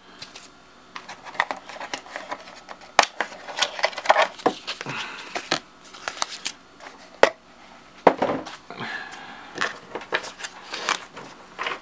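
Stacks of black Cards Against Humanity cards being handled and set into a cardboard card box: irregular sharp taps and knocks, with the cards rustling and sliding against each other and the cardboard dividers.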